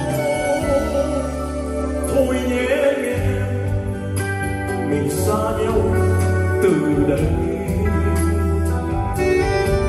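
Live band playing a slow ballad, held bass notes shifting every second or two, with a male voice singing over it.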